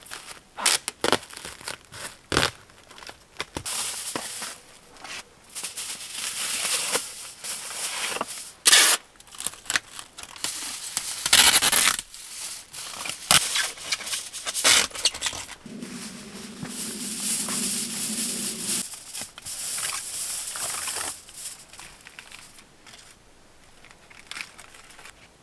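Plastic stretch film and foil insulation sheet crinkling and rustling as they are handled and pressed onto a shelter wall, with sharp clicks and taps scattered throughout. About two-thirds through, a low drawn-out rasp lasts a few seconds.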